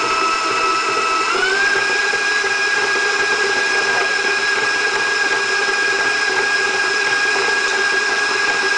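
Electric stand mixer motor running with a steady whine while beating crumbly cookie-crust dough. About a second and a half in, it steps up to a higher speed and the whine rises in pitch, then holds.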